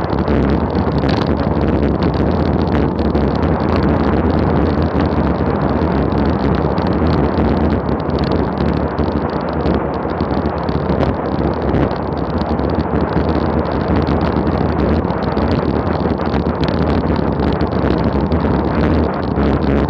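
Rush of wind over an action camera's microphone on a road bicycle descending at about 35 mph: a loud, steady, unbroken wind noise.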